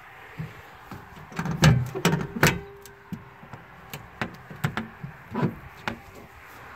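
Plastic access door of an RV's tankless water heater compartment being swung shut and latched: a cluster of knocks and clicks, loudest around two seconds in, then a few lighter taps.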